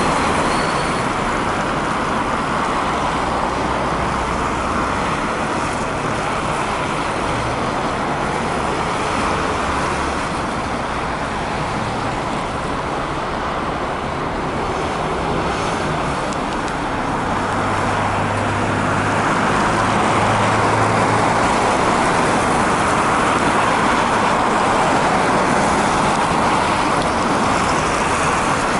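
Road traffic on a city street: buses and cars running and passing, a steady tyre hiss with low engine hum that comes and goes, a little louder in the last third.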